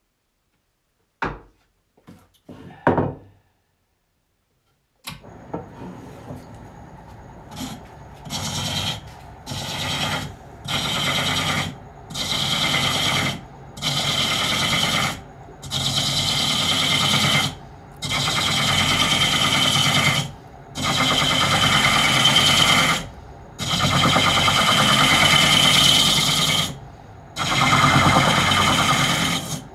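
A few short knocks, then from about five seconds in a hooked turning tool cutting the inside of a wooden cup on a pole lathe: a regular series of scraping cuts, each a half-second to two seconds long, with short breaks as the work spins back between strokes. The cuts grow longer toward the end.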